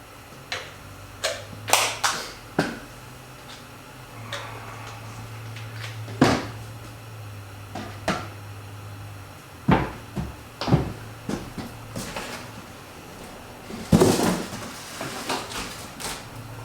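Scattered knocks and clicks of fuel containers, caps and a funnel being handled while kerosene and a fuel additive are measured out, with a steady low hum underneath.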